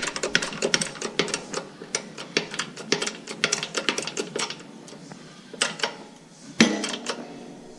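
Metal tools and chainsaw crankcase parts clicking and clinking in quick, irregular succession as the old crankshaft bearings are set up to be pressed out. A few knocks follow, then one louder metallic clank about six and a half seconds in.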